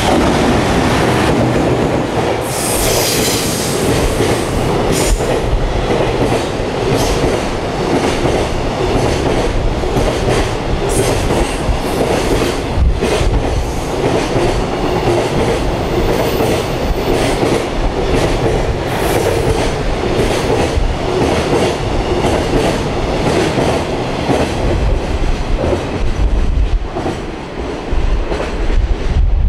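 Container freight train hauled by an electric locomotive passing through a station without stopping. Its wagon wheels clack over the rail joints in a steady run, over a loud continuous rumble.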